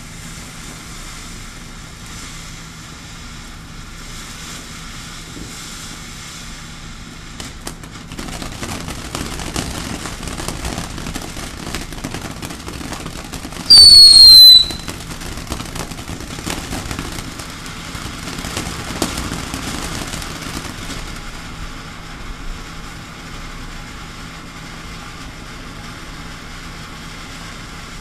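Ground fountain fireworks spraying sparks: a steady hiss that thickens into a crackle about a third of the way in. About halfway through comes one loud firework whistle, about a second long and falling slightly in pitch.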